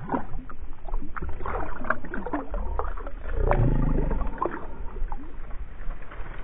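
Water splashing and sloshing in the shallows as a released bass kicks away from a hand, with many short splashes and a heavier low rumble for a couple of seconds in the middle.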